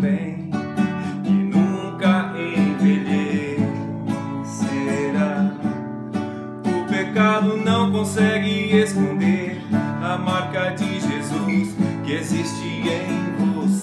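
Classical nylon-string guitar strummed by hand in steady chords, with a man's voice singing along in places.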